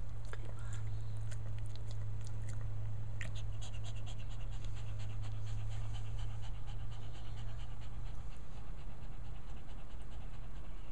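Shih Tzu mother panting quickly, a day after whelping, with a quick even run of breaths through the middle of the stretch. A steady low hum runs underneath.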